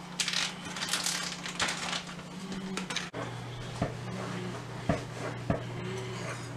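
A plastic zip-top bag of pork in liquid marinade crinkling as it is handled and squeezed. About three seconds in, the sound cuts to a steady low hum with three light knocks.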